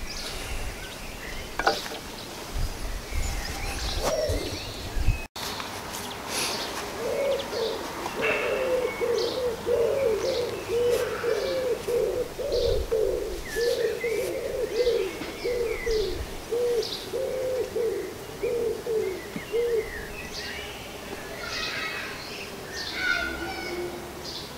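Birds calling: a long run of low, repeated cooing notes, about two a second, with higher chirps and tweets over them.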